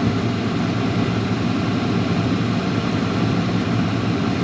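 Farm tractor's diesel engine running steadily under way, heard from inside the cab as an even drone.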